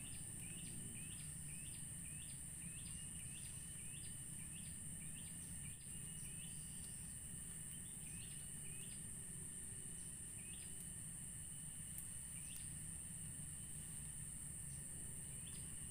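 Forest ambience: a steady high insect drone, with a bird repeating short falling chirps about twice a second that thin out to a few scattered calls after about seven seconds.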